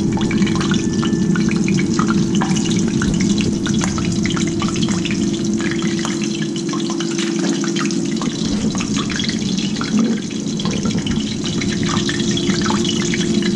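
Cornmeal-coated pieces of shark sizzling in hot oil in a skillet: a dense, steady crackle over a steady hum.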